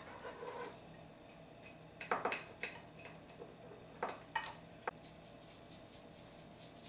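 Quiet kitchenware handling: a wooden spatula, a glass bowl and a nonstick frying pan knocking and clinking, with a few separate knocks about two and four seconds in. A run of faint, quick, even ticks follows near the end.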